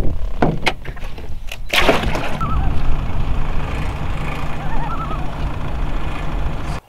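Wind buffeting the microphone in a steady low rumble, with a few handling knocks in the first two seconds. A faint warbling bird call comes twice, about two and a half seconds in and again around five seconds. Everything cuts off suddenly near the end.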